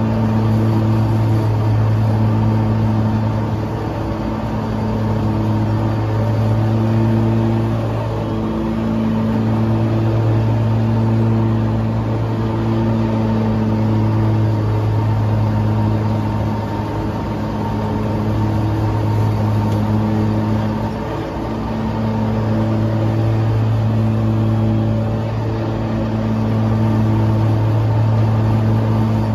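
Kawasaki FX730V V-twin engine of an Exmark Lazer Z E-Series zero-turn mower running steadily while mowing, its level rising and falling gently every few seconds.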